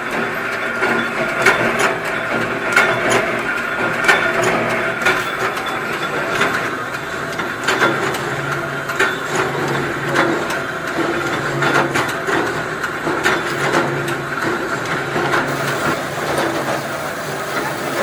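Ammunition production machinery running, a steady hum overlaid with a stream of irregular clicks and clattering parts.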